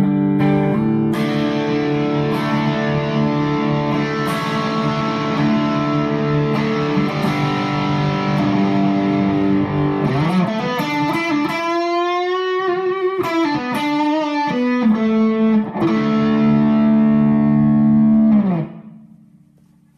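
Les Paul electric guitar played through a Bad Cat Bobcat 5R tube amp with an Angry Charlie overdrive pedal for a high-gain distorted tone. Sustained chords give way about ten seconds in to a lead line with string bends and vibrato, ending on a held chord that is cut off near the end.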